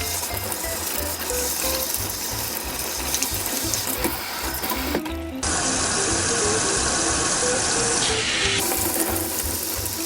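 Tap water running while a vacuum cleaner filter is rinsed, loudest and most even for about three seconds from halfway through. Background music with a steady bass beat plays underneath.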